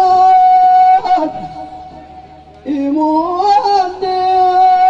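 A man's solo voice singing a long, high Ahwash call: he holds one note, lets it fall away about a second in, then comes back near the middle with a wavering rising run and holds a long note again.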